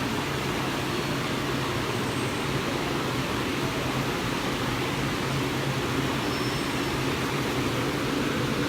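Automatic PP woven-bag cutting and sewing machine running with a steady mechanical hum and hiss.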